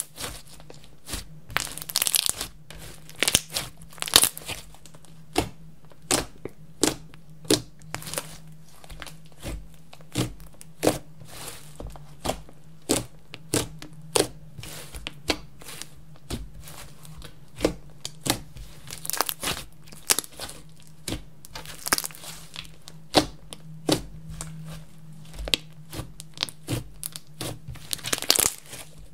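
Hands kneading and pressing a large lump of clear slime mixed with makeup and glitter: a run of irregular sticky clicks and pops, with a few longer hissing squelches.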